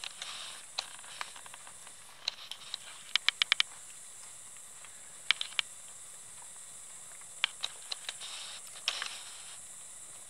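Wood campfire burning, with irregular sharp crackles and pops over a steady high hiss, including a quick run of about five pops some three seconds in.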